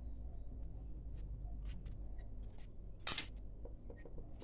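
Knife and hands working on a hedgehog fish (porcupinefish) on a board: faint cutting and handling with scattered small clicks, one sharper click about three seconds in, over a low steady hum.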